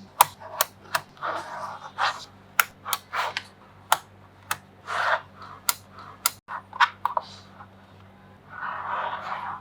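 Small neodymium magnetic balls snapping together: about a dozen sharp clicks at irregular intervals over the first seven seconds, with softer rattling and scraping between them and again near the end.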